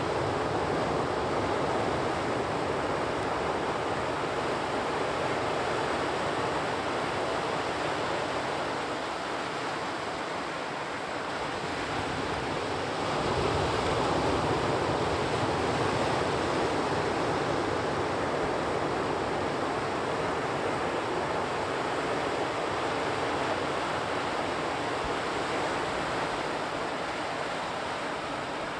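Sea surf breaking and washing on the shore, a steady rush that swells and eases slowly, growing louder about halfway through, with some wind on the microphone.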